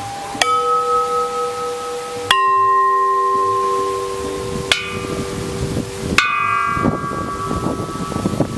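Metal bells struck four times, about two seconds apart. Each strike rings on with a clear, sustained tone until the next, and each is at a different pitch, as if several bells are sounded in turn.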